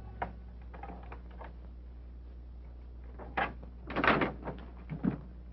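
A door being handled, likely unlocked and opened: a few faint clicks, then a cluster of louder knocks and rattles from about three and a half seconds in. A steady low hum from an old film soundtrack runs underneath.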